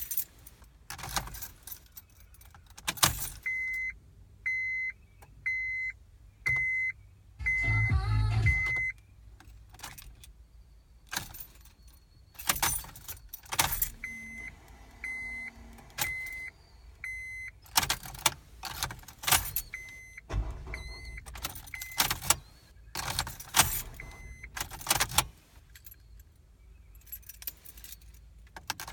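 Keys jangling and clicking in the ignition of a 2009 Honda Civic as the key is turned again and again, with the car's warning chime beeping about once a second in several runs. One louder burst of about a second and a half comes near eight seconds in. The engine never catches: a no-start that turned out to be a failing starter motor.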